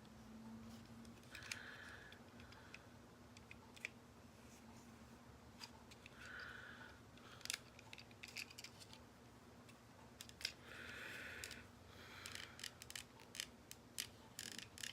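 Faint clicks and short scrapes of hard plastic toy parts being handled: the small Headmaster figure being worked into a Transformers toy's cockpit, which resists before it fits. There are scattered sharp clicks, with brief scraping sounds about a second and a half in, near six and a half seconds, and around eleven seconds.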